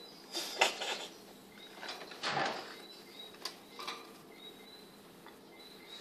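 Pet bird moving about in a small wire cage: a few light clicks and knocks, with a short scratchy rustle about two seconds in.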